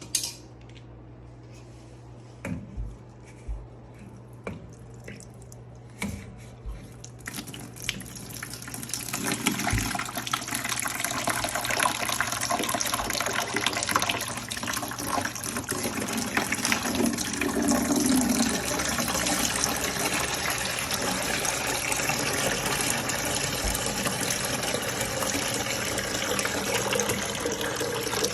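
A few knocks over a steady low hum, then from about seven seconds in a steady rush of running water that builds and keeps going, during work on a front-loading washer that won't drain.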